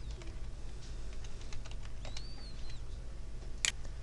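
Computer keyboard typing, a run of light keystroke clicks, with one sharper click near the end.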